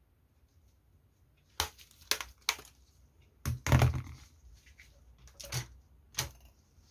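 Objects being handled: about eight irregular sharp knocks and crackles, the loudest and longest a little under four seconds in.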